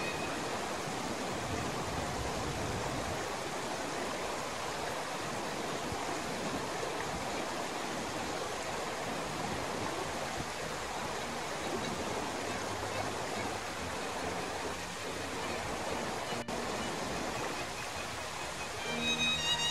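Shallow mountain stream running steadily over stones, a continuous rushing and babbling of water.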